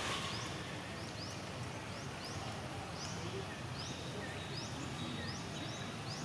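Outdoor ambience: a steady background hiss with a bird giving short, high, rising chirps about twice a second.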